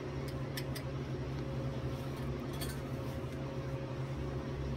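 Steady low electrical hum with a fan-like hiss from the powered-up welder, with no arc being struck. A few light clicks come in the first second and again about halfway through.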